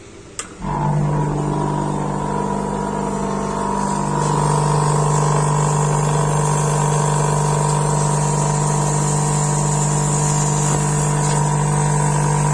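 A faulty refrigerator compressor starts with a click about half a second in, then runs with a loud, steady hum and a higher whine above it. It grows slightly louder a few seconds later. The noise is the sign of a failing compressor, not a gas problem, in a fridge that still cools properly.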